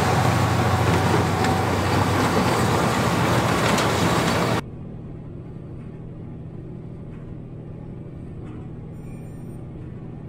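Fendt 942 Vario tractor and Krone BIG Pack 1290 square baler working a hay swath, running loudly. About four and a half seconds in the sound drops abruptly to the quieter, muffled engine hum heard inside the tractor's cab.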